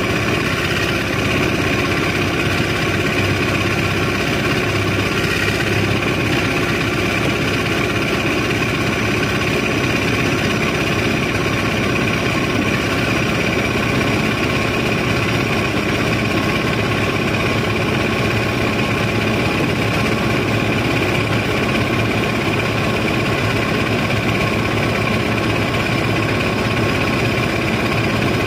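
Barge machinery engine running steadily while sand is unloaded: a constant loud drone with a high whine on top.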